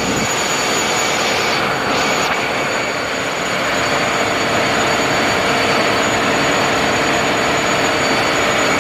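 Ship's engine-room machinery running: a loud, steady mechanical noise with several constant whining tones on top.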